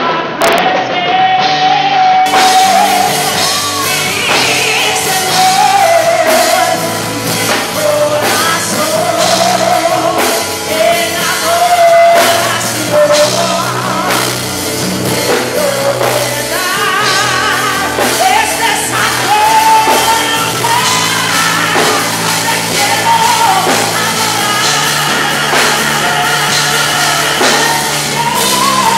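A woman singing a worship song into a microphone, amplified, over a live band with drums.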